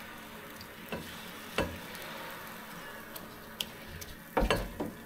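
Food sizzling steadily on a Blackstone flat-top griddle, with a few sharp clicks of a metal utensil on the steel cooktop and a louder clatter of strikes near the end.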